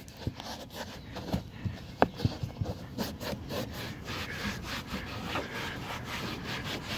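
Microfiber towel rubbing over a leather car door panel in quick, irregular scrubbing strokes, a few a second, wiping hand grease out of the leather's pores, with one sharper tap about two seconds in.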